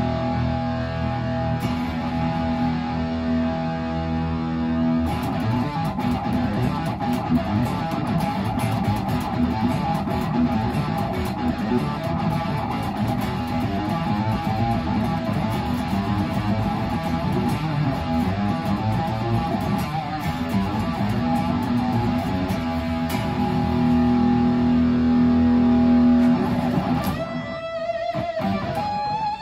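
Epiphone SG electric guitar being played: it opens on held chords, runs into several seconds of busy, fast lead notes, returns to a held chord, and ends on single notes bent upward.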